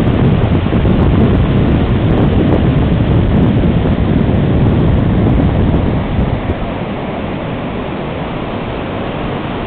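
Ocean surf breaking and washing up a sandy beach, mixed with wind buffeting the microphone. The sound is steady throughout and eases a little after about six seconds.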